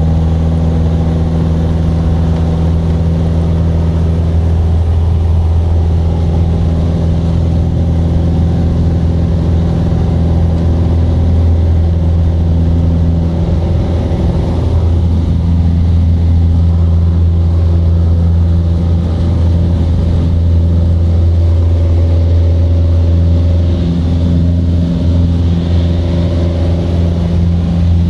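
Piston engine and propeller of a light airplane droning steadily in cruise, heard from inside the cabin.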